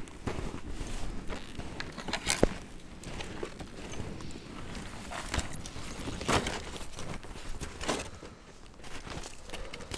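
Footsteps crunching in deep snow and the scrape and crunch of a small tracked snowmobile being hauled and shoved through the snow by hand, coming in irregular strokes.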